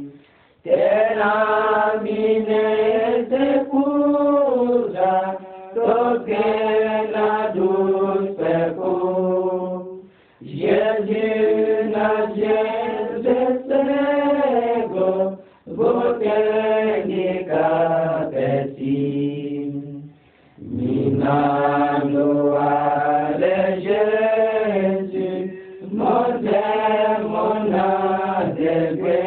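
Voices chanting a religious song, sung in long phrases with held notes and short pauses between them.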